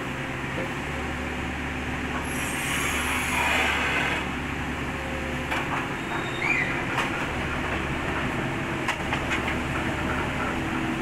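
Kobelco SK50 mini excavator's diesel engine running steadily as the machine crawls on its tracks up onto a steel trailer ramp, with a louder surge about three seconds in. From about halfway through, sharp clanks and knocks of the track links on the steel deck.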